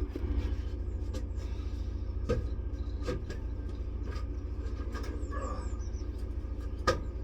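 A steady low motor drone with a fine pulse runs throughout. A handful of short sharp metallic clicks sound over it, the loudest near the end, as an Allen key is worked on the clamp bolt of a Tyron safety band inside the tyre.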